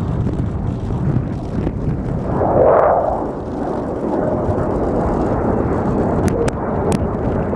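Formation flypast of a KC-130J tanker with F-35 and F/A-18 jets: a loud, steady rumble of jet and turboprop engines that swells a little under three seconds in. Three sharp clicks near the end.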